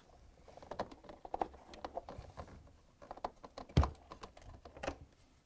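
Plastic and rubber parts of a dishwasher sump being handled as the sump outlet hose is pushed onto its port: a scatter of light clicks and scrapes, with one sharper knock nearly four seconds in.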